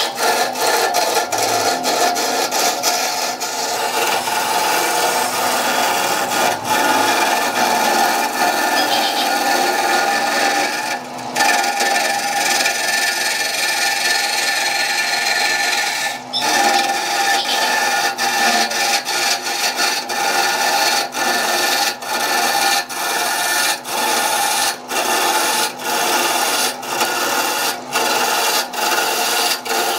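A turning tool cutting into a spinning areca palm root blank on a wood lathe: a continuous rough scraping, with the lathe running underneath. The cut briefly breaks off now and then, more often toward the end.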